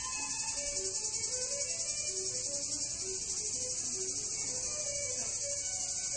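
A dense, steady, high-pitched chorus of singing insects, finely pulsing, with faint melodic notes underneath.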